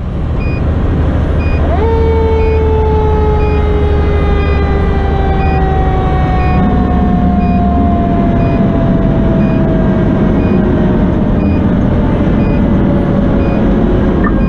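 Federal Q2B mechanical siren winding down: its wail jumps up about two seconds in, then falls slowly and steadily in pitch for over ten seconds as the rotor coasts. Underneath, the fire engine's 470 hp Detroit Series 60 diesel runs steadily, and a faint beep repeats about once a second.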